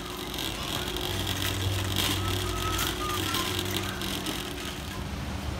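Metal shopping cart rolling over a smooth concrete floor, its wire basket and wheels rattling, over a steady low hum.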